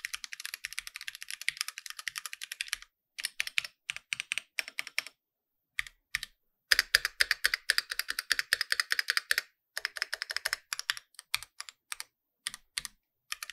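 Keychron Q1 mechanical keyboard with stock brown switches and SA-profile keycaps being typed on: two fast runs of rapid keystrokes, one at the start and one about seven seconds in, with slower single key presses between and after.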